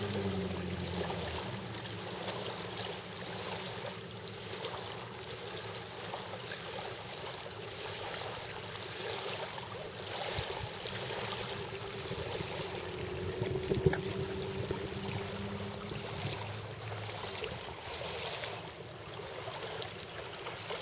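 Small, gentle waves lapping and washing over a shell-gravel shoreline, a steady rushing wash with scattered small splashes. A faint low hum is heard near the start and again in the second half.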